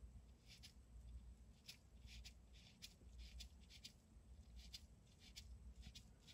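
Near silence, with faint irregular soft ticks of a nail-polish brush being stroked over a gel-polished nail to lay on matte top coat.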